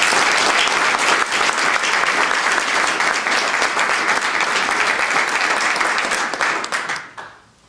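Audience in a room applauding, a dense patter of many hands clapping that fades out near the end.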